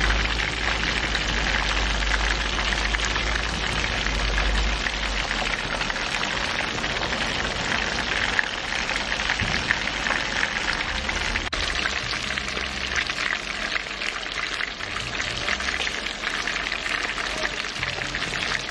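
Whole parrotfish deep-frying in very hot oil in a pan: a dense, steady crackling sizzle.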